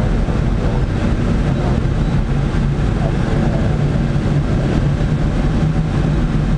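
Steady rush of airflow over the canopy of a Blanik L-23 glider in flight, heard inside the cockpit, with a steady low hum underneath.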